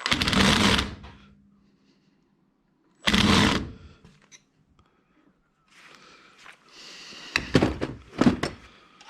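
Paintball markers and their boxes being handled: two loud, heavy thunks about three seconds apart, then a run of lighter knocks and clicks near the end.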